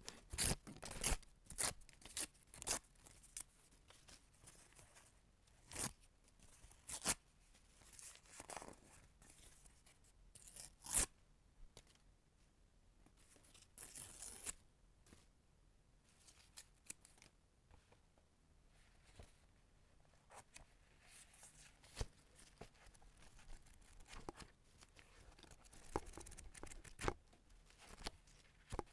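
Paper being crumpled and torn: irregular sharp crackles and short ripping sounds, separated by brief pauses.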